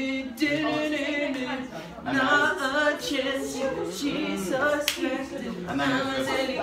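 Unaccompanied singing: a voice holding long, wavering notes with vibrato, with one sharp click about five seconds in.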